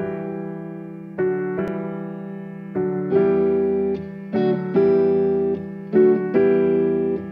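Electric piano playing slow chords, each struck and left to fade. New chords come about every second and a half at first, then more often in the second half.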